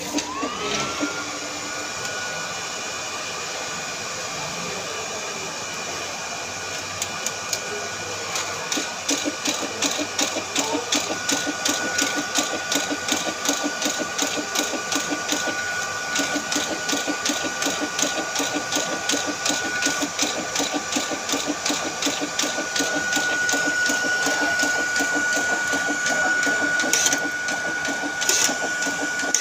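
Small electric motor-driven machine on a test run after repair: the motor spins up with a rising whine that settles to a steady pitch. From about eight seconds in it keeps running with a fast, even clicking.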